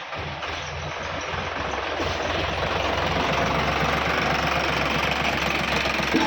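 Heavy diesel engine running steadily under a wide noisy wash, growing louder about two seconds in.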